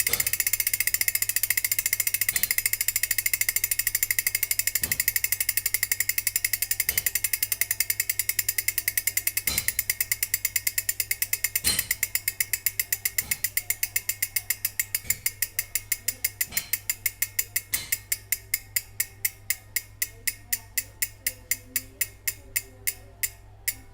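Freewheeling bicycle hub ticking as the spun wheel coasts down: the ratchet clicks start as a fast buzz, slow to a few distinct clicks a second and stop just after the end. A faint knock comes about every two seconds.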